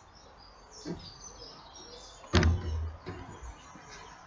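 Faint birds chirping over steady background traffic noise, broken by a single loud thump a little over two seconds in.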